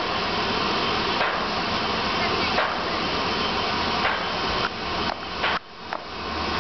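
Cricket bowling machine running close by with a steady whirring hiss, broken by a couple of sharp knocks and a sudden drop in level about five and a half seconds in.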